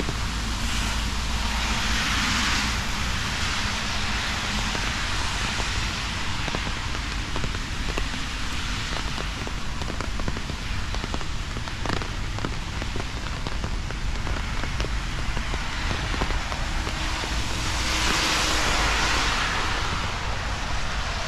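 Steady rain falling, with many small raindrop ticks through an even hiss. The hiss swells louder twice, about two seconds in and again near the end.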